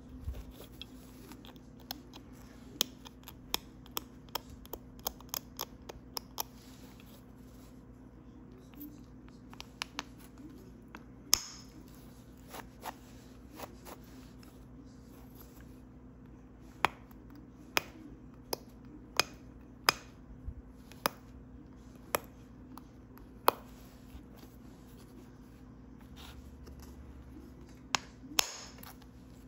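Pressure flaking a notch into a heat-treated Flint River chert point with a nail tip: a string of sharp, short clicks at irregular intervals as small flakes pop off the stone, a quick run of them in the first few seconds and then more scattered.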